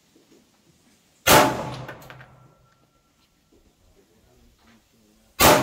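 Two shots from a 9mm Canik pistol, about four seconds apart. Each dies away over about a second.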